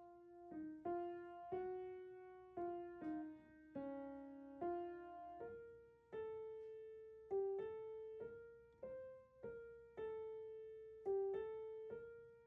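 Solo piano playing a slow background melody, single notes struck one after another and each left to ring and fade.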